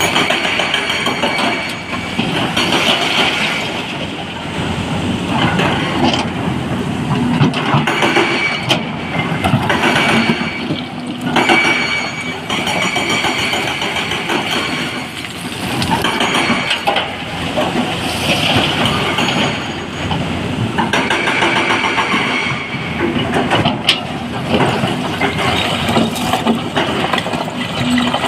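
Excavator loading a dump truck: heavy diesel engine running under load, swelling and easing every few seconds, with the clatter and rumble of rock.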